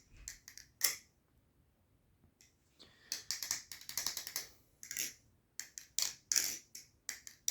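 New Era Abyss balisong being flipped and fanned, its handles clacking and rattling as they swing around the blade on freshly lubed pivot washers. Clicks come in clusters: a few under a second in, a short pause, then a quick run of clacks and more scattered clicks toward the end.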